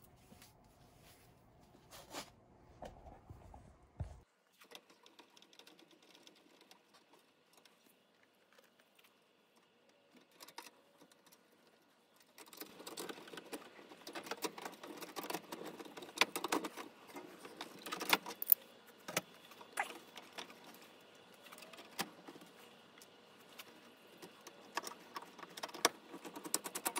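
Metal hand tools and small hardware clinking and rattling against the copper tubing and fittings of a heat pump's indoor coil. It is a quick run of sharp metallic clicks and jangles, starting about twelve seconds in after a faint, mostly quiet stretch.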